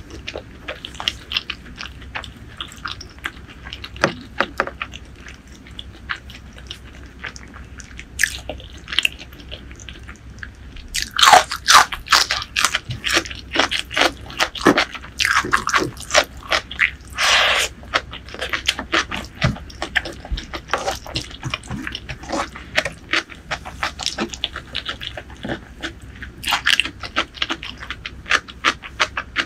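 Close-miked eating sounds: wet chewing with many sharp mouth clicks. In the middle there is a louder, busier stretch as fingers squish and mix rice with curry sauce.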